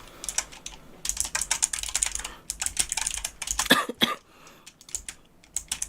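Typing on a computer keyboard: a quick run of key clicks for a couple of seconds, then sparser keystrokes, with one louder knock about four seconds in.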